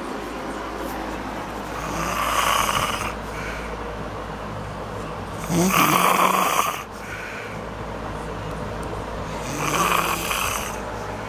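A woman snoring in deep sleep: three loud snores about four seconds apart, the middle one the loudest.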